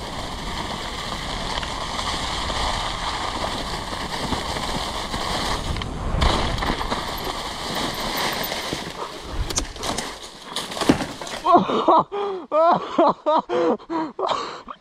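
Mountain bike rolling fast through a thick layer of dry fallen leaves, a steady rushing noise of tyres in the leaves. It ends in a few sharp knocks about ten seconds in, the noise stops about eleven and a half seconds in, and a person's voice follows.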